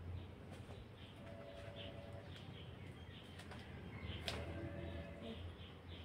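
Birds calling: a level call about a second long repeats about every three seconds over scattered short chirps. Rustling and a few sharp snaps come from luffa vine leaves being handled and picked, the loudest snap about four seconds in.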